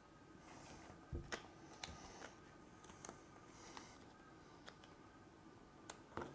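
Faint handling sounds of a phone and its vinyl skin: a scattering of light taps and clicks, with two brief soft rustles of the thin vinyl and its backing paper, over a quiet room hum.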